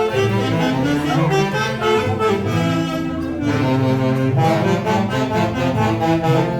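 Tunantada music from a live band, with saxophones carrying the melody and violins underneath, playing steadily without a break.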